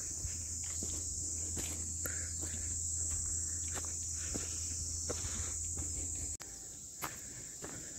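A steady, high-pitched chorus of insects fills the air, with scattered footsteps on the rough trail. The sound cuts out briefly about six seconds in, then the same chorus resumes.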